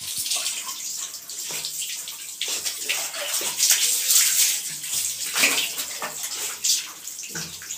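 Water poured from a plastic mug splashing over a wet dog's coat and onto the floor during a bath, in uneven surges, with hands rubbing the soaked fur.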